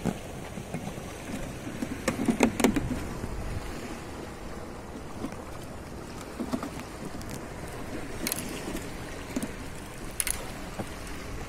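Steady wash of sea and wind at the water's edge, a low rumbling noise, broken by a few sharp clicks and knocks, the loudest cluster about two seconds in.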